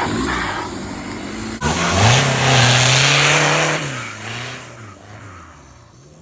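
Off-road 4x4 competition vehicle's engine revving hard, climbing to a loud, held high rev about two seconds in, then dropping back and fading.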